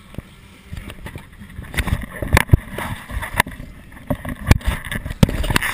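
Irregular knocks and bumps from a body-worn action camera being handled and jostled on a boat deck, the hardest about two and a half seconds and four and a half seconds in, over a rush of wind and water noise.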